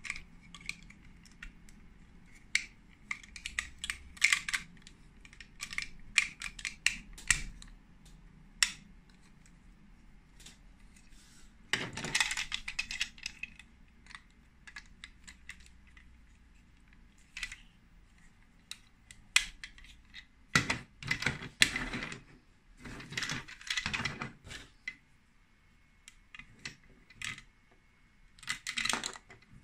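Plastic Lego Duplo pieces clicking, knocking and rattling as they are handled and pressed together, in irregular bursts of sharp clicks with short quiet gaps between.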